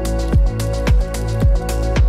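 Background music with a steady kick-drum beat, about two beats a second, over sustained chords and a low bass line.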